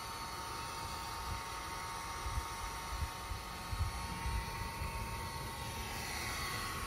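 A steady mechanical whir with a few faint high tones running through it, and a handful of dull low knocks between about two and a half and four and a half seconds in.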